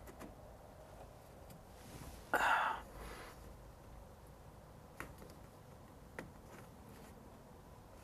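Quiet handling noise as a wall-mounted security camera is turned by hand: a short scraping rustle about two and a half seconds in, then a couple of light clicks.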